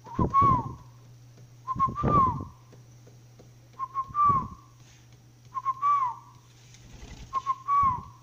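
A person whistling a dove-like call to bring a pet spotted dove over. The phrase is two short notes and a longer falling one, repeated five times about every two seconds, with breath noise on the microphone.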